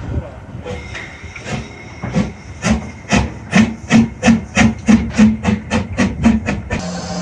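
Harz narrow-gauge steam locomotive chuffing as it pulls away, the exhaust beats quickening from about two to three a second before cutting off suddenly near the end.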